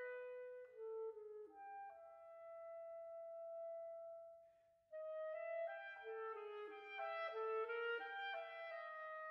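Instrumental background music: a slow melody of held notes, one long note fading out about four seconds in, then after a brief pause the melody returns with two or more parts playing together.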